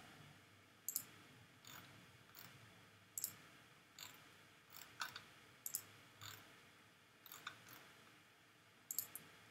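Faint computer mouse clicks, about a dozen at uneven intervals with some in quick pairs, as the trim tool cuts away line segments in a CAD sketch.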